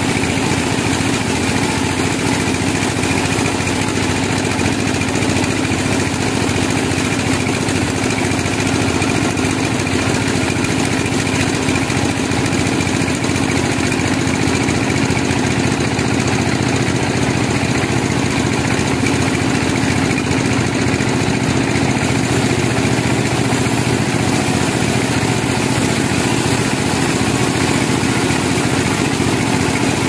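Band sawmill running steadily, its vertical steel blade sawing lengthwise through a log. The machine drone is constant and unbroken.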